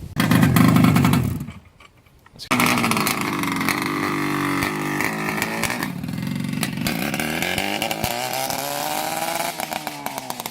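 Suzuki GT250's two-stroke twin engine runs loudly for about a second and a half and cuts out, then catches again about a second later and keeps running, its revs rising and falling.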